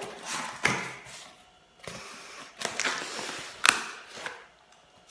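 Cardboard packaging being handled and pulled open to take out a book: rustling and scraping with a few sharp knocks, the loudest nearly four seconds in.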